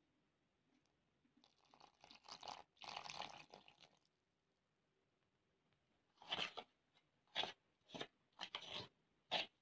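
Cooking oil poured from a plastic bottle onto flour in a steel bowl, followed after a pause by about half a dozen short scraping strokes as the oil is mixed into the flour for dough.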